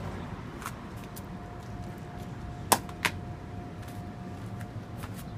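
Two sharp plastic clicks about half a second apart, with a few fainter ones around them, from small toy water pistols being handled. A steady low hum runs underneath.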